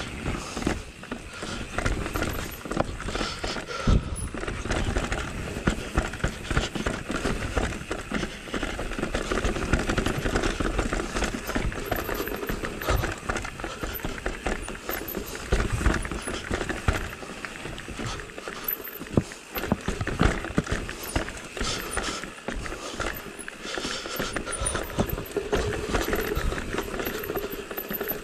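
Mountain-bike tyres and frame rattling and knocking over rock slabs on a rough descent, with a continuous noise of rolling over the trail and many irregular sharp knocks from the bike hitting stones.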